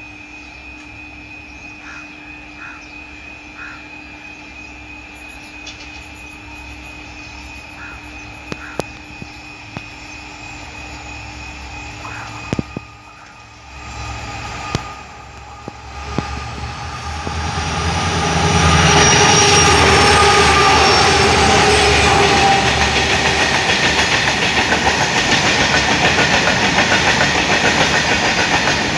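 Freight train hauled by twin WDG-4 two-stroke diesel locomotives approaching: a low, distant engine rumble at first. It grows much louder about 17 seconds in as the locomotives pass, followed by the steady rattle of the hopper wagons rolling over the rails.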